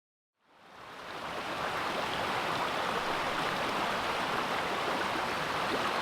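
Mototaki Fukuryusui spring-water waterfall, a wide curtain of spring water falling about 5 m from a lava cliff, making a steady rush of water that fades in over the first second.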